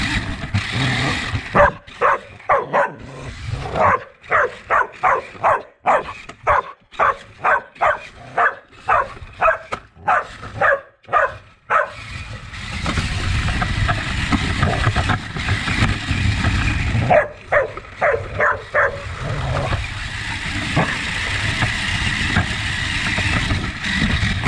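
A dog barking in quick runs of short barks, about two a second, with a pause in the middle. Between the runs comes the steady whir of a small radio-controlled car's electric motor.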